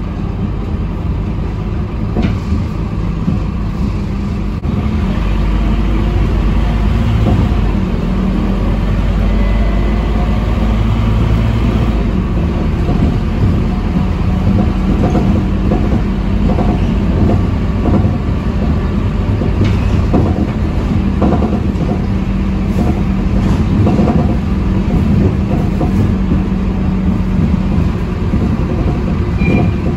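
Interior of a moving Scania K230UB city bus: its rear-mounted nine-litre five-cylinder diesel engine running under way, with road and tyre rumble. The low rumble grows heavier from about five to twelve seconds in, and there are occasional light clicks and rattles.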